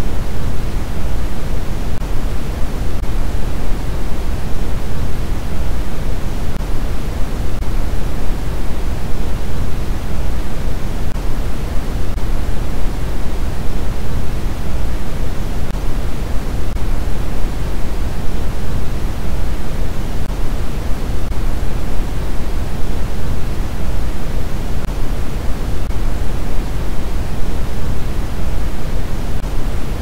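Synthetic noise of the kind sold as white noise, playing as one steady, unbroken rush. It is loud, with its weight in the low end, and it thins out toward the highs, so it sounds deeper than flat white noise.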